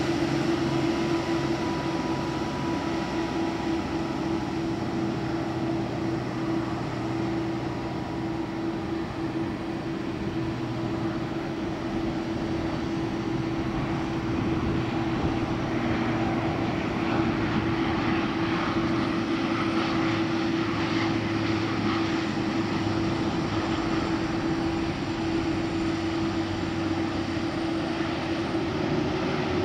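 Bombardier Dash 8 Q400 turboprop airliner on landing approach: a steady propeller drone with one strong constant hum over the engine noise, edging slightly higher in pitch at the very end.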